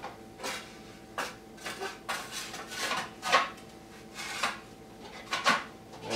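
A carbon-fibre pipe guard fitted by hand against a dirt bike's exhaust pipe: light knocks, taps and scraping as hard pieces are set against each other and shifted into place. The loudest knocks come a little over three seconds in and again near the end.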